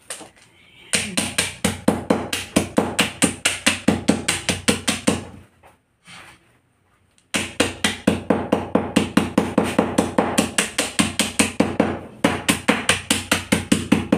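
Steel claw hammer pounding mothballs wrapped in cloth on a concrete floor, crushing them to powder. It strikes rapidly, about five blows a second, stops for about two seconds midway, then carries on.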